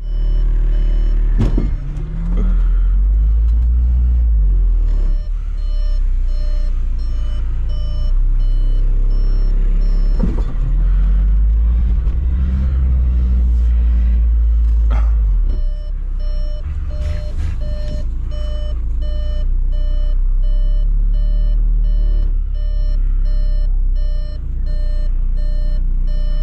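Vehicle engine running and revving under load with a heavy low rumble, and a reversing beeper sounding over it in repeated beeps from about five seconds in.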